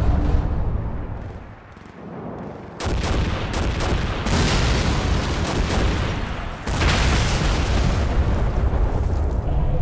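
Rapid machine-gun fire sound effects over a low rumble. The firing dies down about a second in, starts again suddenly about three seconds in, and gets louder again past halfway.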